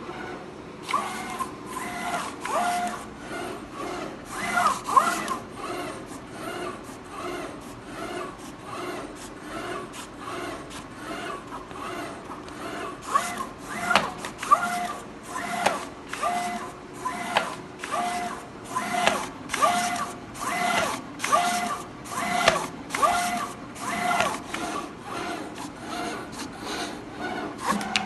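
SASA SCA3+II PRO automatic decal cutting plotter at work: its motors whine in short, repeated carriage and feed moves, about one to two a second, each with a brief hiss.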